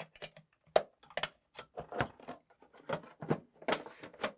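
Xbox Series X parts being fitted back together by hand: a run of about a dozen irregular light clicks and taps of metal and plastic pieces.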